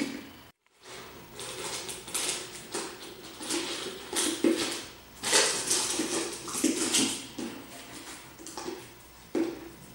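Malamute puppy working at an empty plastic Jif peanut butter jar on a concrete floor. Irregular scrapes, knocks and rattles come from the jar as it is pawed and pushed about, mixed with licking at the jar. There is a brief dropout about half a second in.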